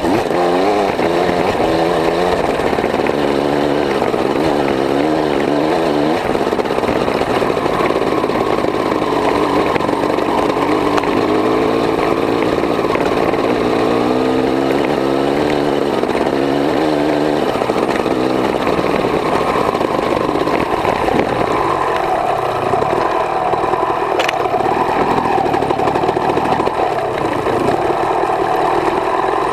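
Honda CR250 single-cylinder two-stroke motocross engine running under way, its pitch sweeping up and down again and again with the throttle. It settles to a steadier note in the second half.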